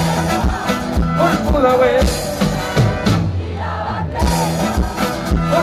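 Live folk-rock band playing an instrumental passage: acoustic and electric guitars over a steady bass line and drum kit, with a wavering lead melody on top.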